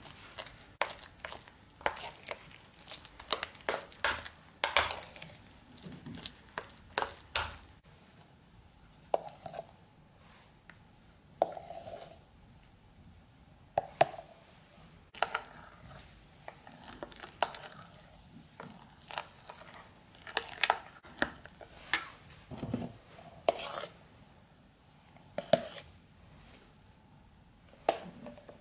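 A metal spoon scraping and clicking against a bowl as it stirs a thick cream-cheese and chocolate mixture. The strokes come quick and close together for the first several seconds, then turn slower and scattered while whipped cream is folded in.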